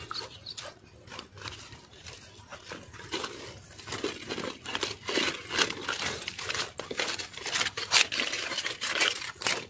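Irregular crinkling and rustling with many small clicks and taps, close to the microphone, stopping abruptly near the end.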